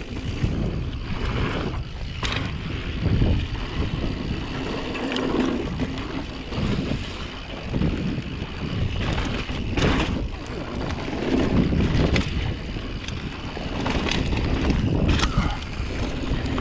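Mountain bike riding down a dirt trail: wind buffeting the camera microphone and tyres rolling over dirt and rocks make a steady rumble, with sharp knocks and rattles from the bike as it hits bumps.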